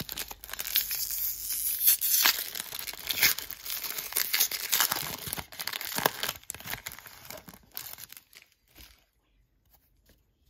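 A trading-card pack wrapper being torn open and crinkled in the hands, with many sharp crackles and rips. It dies away about eight seconds in, leaving only a few faint taps.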